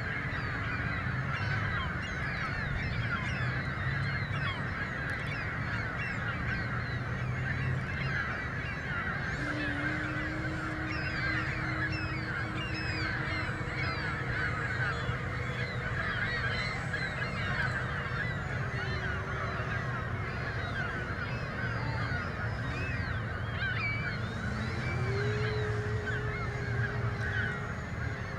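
A large flock of birds calling continuously, many honking calls overlapping, over a steady low rumble.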